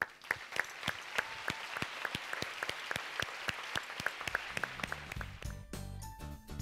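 Audience applauding, starting suddenly and thinning out after a few seconds. Background music comes in under it about four and a half seconds in.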